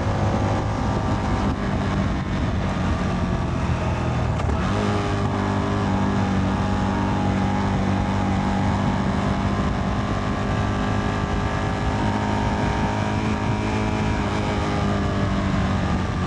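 Motorcycle engine running at a steady pitch while riding, its tone changing about four and a half seconds in.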